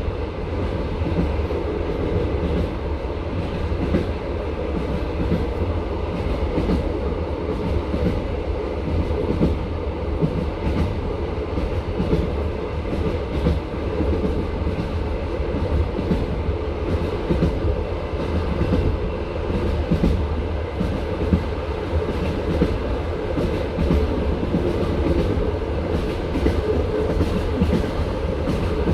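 Passenger train carriage running along the line: a steady rumble with the clatter of wheels knocking over rail joints.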